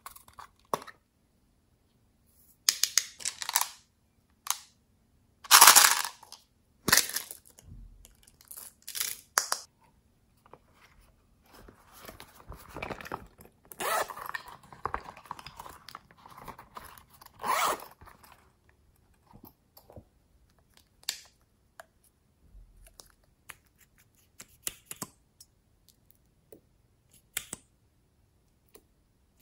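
Plastic makeup cases and a lipstick tube being handled and opened: a series of irregular clicks, snaps and scrapes of plastic, loudest about six seconds in, with a longer stretch of scraping and rustling in the middle.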